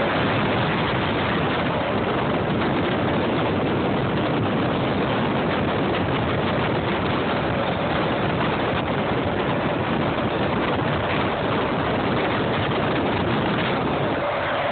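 Steady rush of road and wind noise from a large vehicle travelling at speed, heard from inside the cab, with the engine running underneath.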